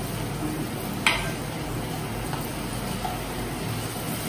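Chopped capsicum sizzling in oil in a steel frying pan as it is stirred with a spatula, with one sharp clink of the spatula on the pan about a second in and a couple of light taps later.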